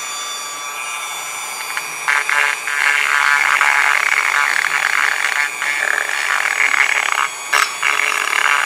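Dremel rotary tool with a tile-cutting bit spinning at high speed, then grinding into a Stihl MS 660 cylinder's intake port from about 2 s in to rough up the surface for epoxy: a loud, rough, chattering grind with two brief breaks.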